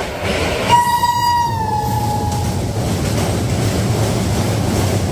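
Express train running at speed, heard from an open coach door: a steady rumble of wheels on the track. About a second in, one horn blast of nearly two seconds sounds, its pitch sagging slightly as it fades.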